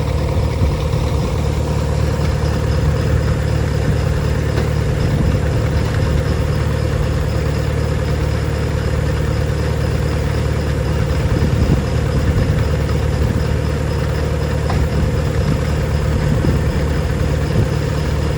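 Feed-grinding machinery running steadily while grinding chicken and quail feed: an even, low mechanical drone with no change in speed.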